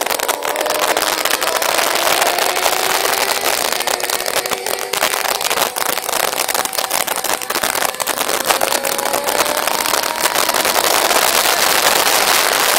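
Heavy wind buffeting over the microphone on a motorcycle at track speed, with the Yamaha FZS600's inline-four engine faintly audible beneath it, its note rising as it accelerates, once over the first few seconds and again later.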